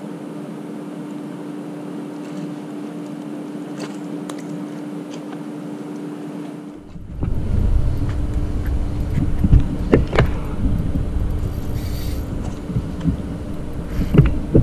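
A steady low hum with faint hiss, then after a sudden change a louder, uneven low rumble with scattered sharp clicks from a spinning reel being handled.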